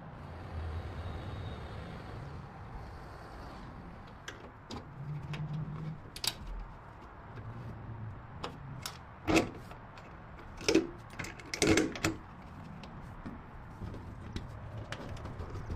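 Scattered clicks and knocks of hand work in a workshop, with a few louder knocks from about nine to twelve seconds in, over a faint low hum.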